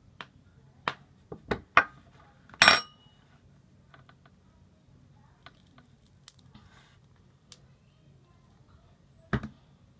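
Sharp clicks and taps of a metal spoon and a hard, dried-out slime being handled, the loudest a ringing metallic clink about two and a half seconds in. Then a few faint ticks and one more sharp knock near the end.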